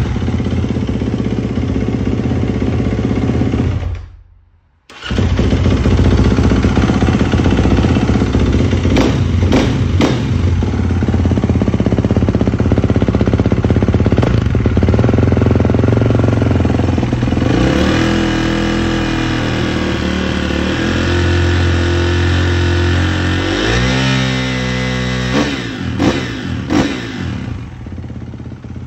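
2021 Kawasaki KX450's single-cylinder four-stroke engine running after a cold start. The sound drops out for about a second early on, then the engine runs steadily. About two-thirds through it rises in pitch, followed by a couple of short revs, and it quietens near the end.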